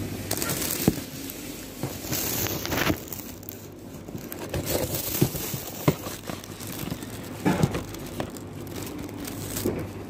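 Cloth towel rubbing and rustling close to the phone's microphone as a counter and glass are wiped dry, with a few sharp knocks of handling on the counter, over a steady low hum.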